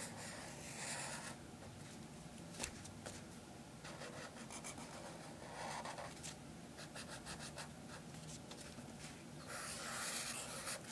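Felt-tip marker drawing on paper: faint scratching strokes, longer ones about a second in, around six seconds and near the end, with quick short strokes between.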